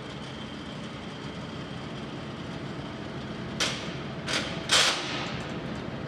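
Spindle-speed selector on a Mecof 40C radial drilling machine turned by hand between gear settings, clunking three times in quick succession about halfway through, the last clunk the loudest, over a steady machine hum.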